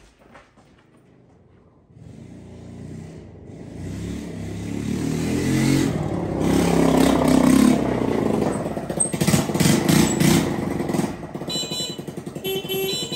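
Two small motor scooters, one a red CFMoto 150 Glory, riding up and into the shop. Their engines grow louder from about two seconds in, are loudest in the middle, and ease off near the end as they pull up.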